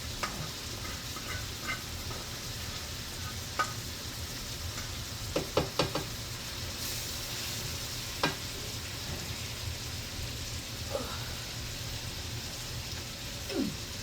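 Vegetables and bay scallops sizzling steadily as they fry in oil in a frying pan while being stirred, with a utensil tapping against the pan now and then, including a quick cluster of taps about five and a half seconds in.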